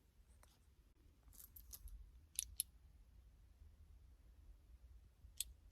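Near silence with room tone and a few faint, sharp clicks: a small cluster about a second and a half in, two more about a second later, and one near the end.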